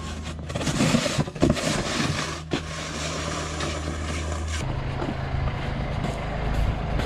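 Vehicle engine running steadily, its low hum changing to a lower note about two-thirds of the way through, with bursts of noise over it in the first half.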